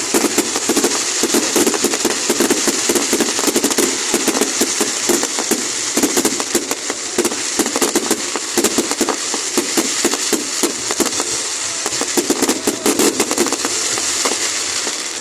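Fireworks display: a dense, continuous barrage of crackling and rapid bangs.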